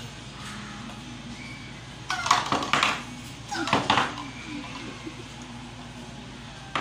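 Wooden toy blocks toppling and clattering onto a wooden table, in two short bursts about two and three and a half seconds in.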